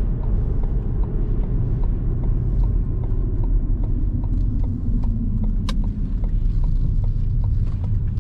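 A car driving on the road: a steady low rumble of engine and tyres, with light ticks and clicks scattered through it and one sharper click near the middle. The engine note sinks slowly about halfway through.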